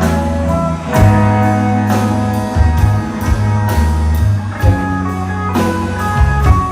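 Live band playing an instrumental passage between vocal lines, with guitar and drum kit over steady low bass notes.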